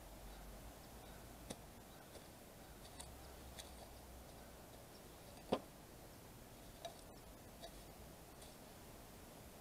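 Small hand hoe chopping into sandy soil: faint, scattered chops and scrapes, with one louder chop about five and a half seconds in.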